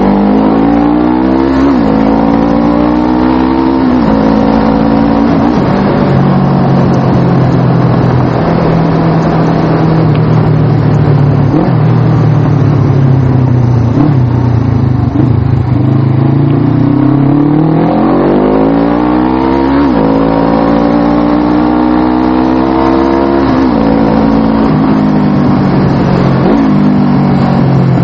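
Suzuki GS500's parallel-twin engine accelerating up through the gears, its pitch climbing and dropping back at each shift, then holding a steady cruise for about twelve seconds before pulling up through three more gears near the end.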